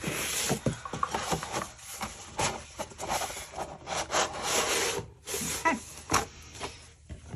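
Paper and plastic packaging rustling and crinkling as scrapbooking products are handled, in irregular bursts with small clicks and taps between them.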